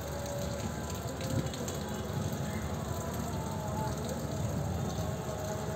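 Thunderstorm ambience: steady rain with a low rumble of distant thunder underneath.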